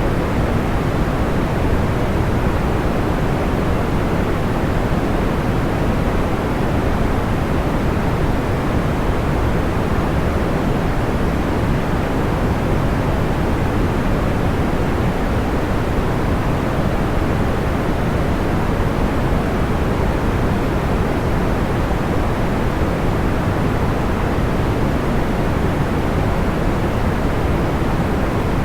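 Steady, unchanging sleep noise, a soft even hiss weighted toward the low end, with no distinct crackles or pops.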